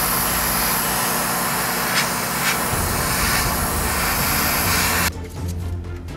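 Airbrush spraying paint onto a plastic ship-model hull: a steady hiss of air and atomised paint that cuts off suddenly about five seconds in.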